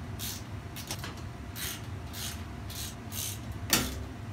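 Ratchet socket wrench clicking in short rasping runs about every half second as bolts on a washing machine's rear panel are undone, with one sharper knock a little under four seconds in.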